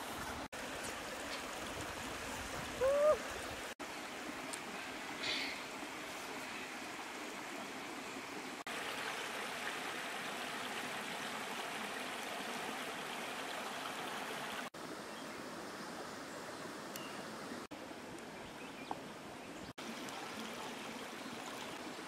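Steady rush of a flowing stream, with a short rising chirp about three seconds in.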